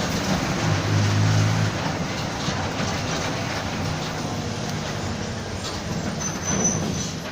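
Mercedes-Benz OF-1722M bus on the move: the diesel engine runs over road and body noise, and the growling differential drones loudest about a second in.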